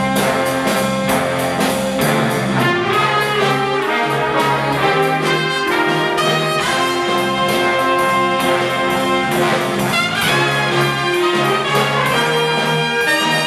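A big jazz band playing live: the trumpet and trombone sections play loud held chords that change every second or two, over a steady drum-kit beat with piano and saxophones.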